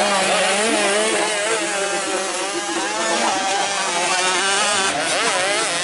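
Several motocross bike engines revving at once, their pitches rising and falling as the throttles open and close.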